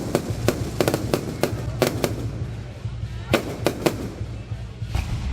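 Fireworks going off: about a dozen sharp bangs at uneven intervals, with a short pause a little after two seconds.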